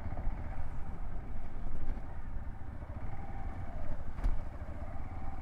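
Hero XPulse 200's single-cylinder engine running as the motorcycle rides over a rough, muddy road, under a steady rumble of wind and road noise. There is a single sharp knock about four seconds in.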